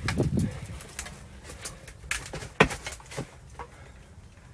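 Irregular clicks, knocks and crunches of footsteps on storm debris and camera handling noise as a phone is carried through a wrecked building, with a low rumble at the start and the sharpest knock about two and a half seconds in.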